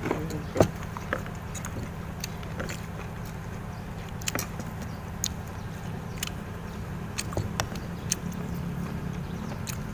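Scattered clicks and light clinks from people eating by hand at a table, plates and food being handled, over a steady low hum.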